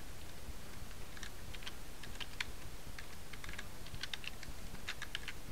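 Computer keyboard being typed on: irregular keystrokes, several close together in quick runs, over a steady low background hum.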